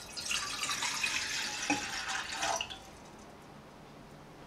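Water poured from a measuring cup into an empty tea kettle, splashing and running for about two and a half seconds and then stopping.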